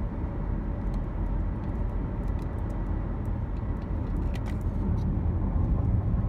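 Steady low rumble of a car driving along a road, heard from inside the cabin: engine and tyre noise, with a few faint clicks.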